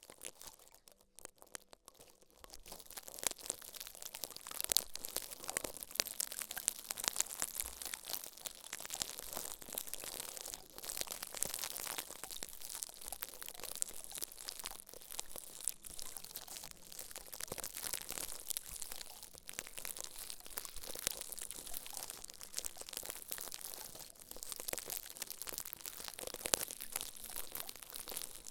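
Close-up ASMR crinkling and crunching: a dense run of fine crackles with scattered sharper snaps, starting about two seconds in.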